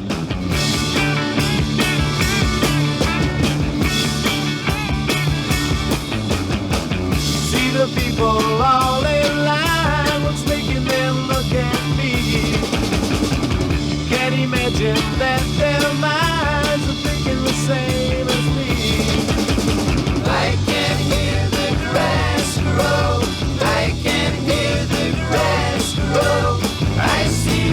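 Psychedelic rock music with drums, bass and guitar, starting at full level and playing steadily, with a wavering lead line over the top.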